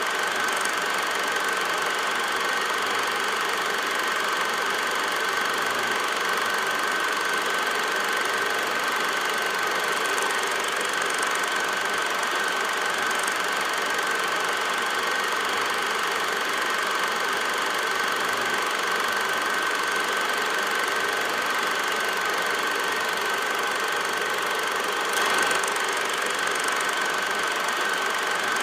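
A film projector running steadily: an even mechanical whir with a constant high whine through it, and a brief slight swell about 25 seconds in.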